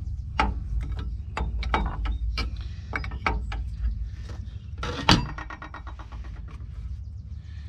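Hand tools clicking and knocking on the metal fittings of a truck air dryer as they are worked loose. The clicks are irregular, with a sharp knock about five seconds in followed by a brief rapid rattle, over a steady low hum.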